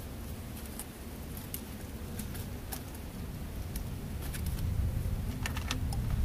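Light plastic clicks and taps from handling an Asus X441M laptop's plastic keyboard top case, with a quick cluster of clicks about five and a half seconds in as it is set down onto the laptop base. A steady low rumble runs underneath.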